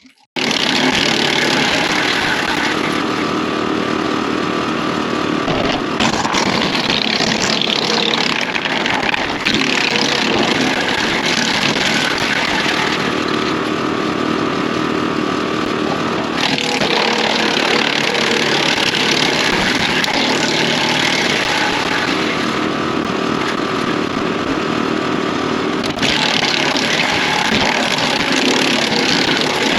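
Tractor-driven Woodland Mills WC68 6-inch PTO wood chipper running with branches being fed through, steady engine drone under the grinding hiss of chipping. The chipping noise swells and eases several times as branches go through. The sound starts suddenly just at the start.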